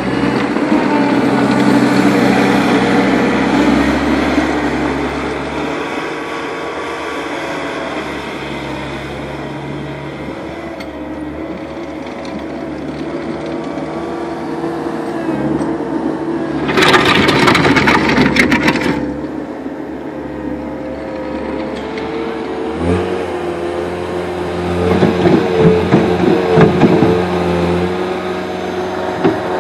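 Caterpillar 257B compact track loader's diesel engine running and being worked, its revs rising and falling. A burst of loud metallic clattering comes a little past halfway, and more rattling clanks follow near the end.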